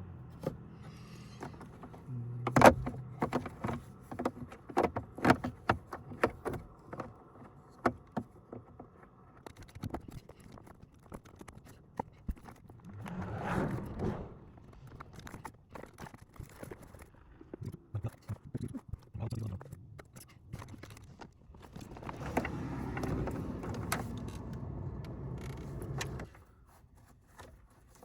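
Hand work under a car dashboard: a rapid string of sharp plastic clicks, knocks and rattles with some scraping, as a new HVAC blend door actuator is worked into place. There are two longer, steadier stretches, one briefly about halfway through and one for several seconds near the end.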